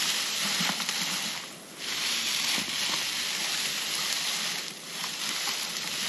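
A handful of cut hay rustling and crackling as it is squeezed and worked in the hands, being felt for moisture. The rustle eases off briefly twice.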